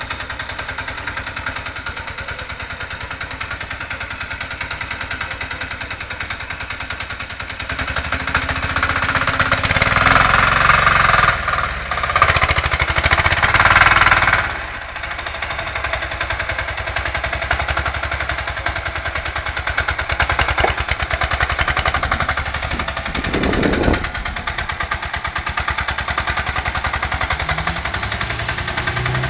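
Homemade tractor's small diesel engine running with a rapid, even knock. It gets clearly louder for several seconds in the middle as the front loader bucket digs into a pile of sand and lifts, then settles back to a steady run.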